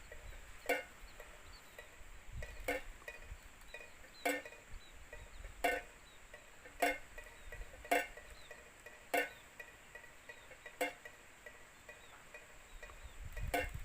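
Wind-driven PVC-pipe bird scarer (klencer) knocking: a hollow, ringing clack about every one to two seconds, unevenly spaced, about nine in all.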